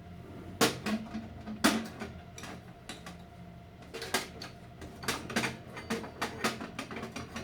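Metal scooter CVT parts clinking and knocking as they are handled: a couple of sharp clanks early on, then a quicker run of light clicks and taps.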